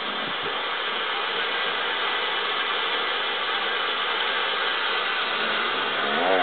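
A steady rough rasping noise, and about six seconds in a husky's wavering, warbling whine.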